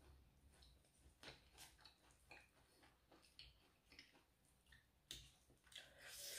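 Faint scattered soft clicks and small wet sounds of roast duck meat being torn apart by hand and chewed, a little louder near the end, over otherwise near silence.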